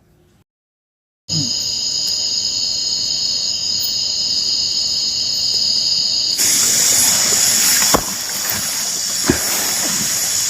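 Cicadas (tonggeret) buzzing in a steady, high, unbroken drone that starts after a second of silence and swells louder and hissier about six seconds in.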